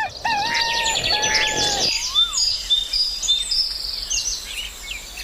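Several birds chirping, trilling and whistling together, with a held whistle that stops about two seconds in and a single rising-then-falling whistle just after.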